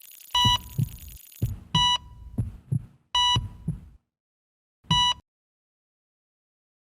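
Heartbeat thumps in lub-dub pairs, with a patient-monitor style beep on each beat, four beeps in all, stopping suddenly about five seconds in.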